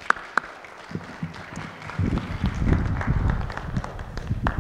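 Audience applauding a speaker's welcome, with louder low knocks close to the microphone in the second half.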